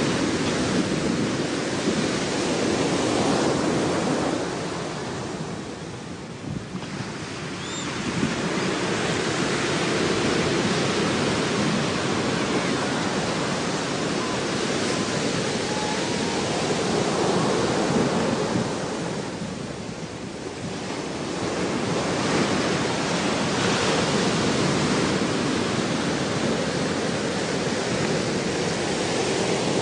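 Ocean surf washing onto a shore: a steady rushing noise that eases off twice for a few seconds and swells back.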